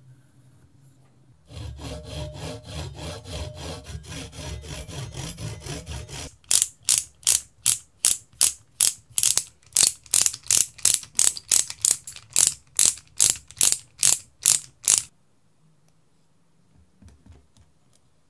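A small wooden knife-handle blank clamped in a vise, being cut by hand with a fine-toothed tool. A fast, continuous rasping runs for about five seconds, then gives way to about twenty louder, even strokes, roughly two a second, which stop a few seconds before the end.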